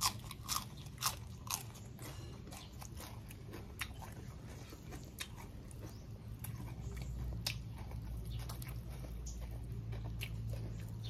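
A person biting and chewing crisp raw vegetable leaves. There are several sharp crunches in the first second and a half, then quieter chewing with a few faint clicks. A steady low hum comes up in the second half.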